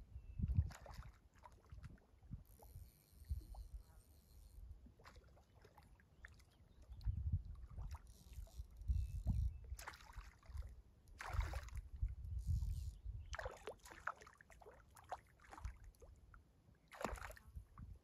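Water sloshing and splashing in short, irregular bursts, over low rumbling on the microphone.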